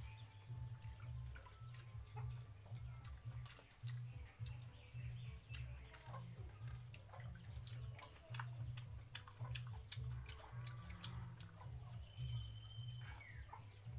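Hands eating watered rice from steel bowls: wet squishing and sloshing of rice in water, with many small clicks of fingers against the metal, over a low uneven hum.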